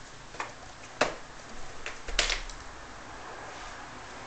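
Maltese puppies scuffling and wrestling on a balcony floor: a few light knocks and scuffs, the sharpest about a second in and a longer one just after two seconds, over a faint steady hiss.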